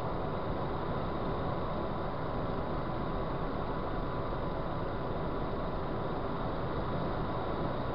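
Steady road and wind noise of a car travelling at motorway speed, with a thin, steady high tone running through it.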